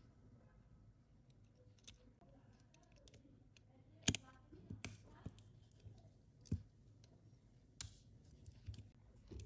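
Small, sharp clicks and taps of a Sony Ericsson K800 phone's plastic and metal parts being handled and fitted during disassembly or reassembly. They come irregularly, the loudest about four seconds in.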